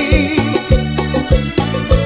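Cumbia romántica band recording in an instrumental passage with no singing: a bass line under a steady percussion beat, with melody instruments over it.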